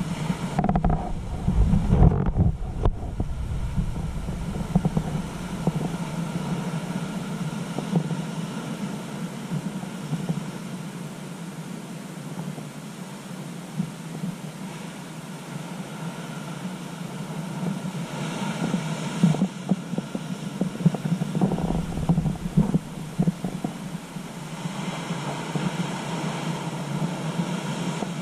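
Ocean surf breaking on offshore rocks and washing through rocky tide pools, swelling louder as bigger waves come in near the end. Gusts of wind buffet the microphone at the start, and a steady low hum runs underneath.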